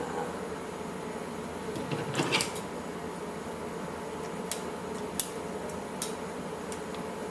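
Scissors snipping through the plush fur and fabric of an Elmo Live toy: a rustly cluster of snips about two seconds in, then single sharp clicks every second or so, over a steady low hum.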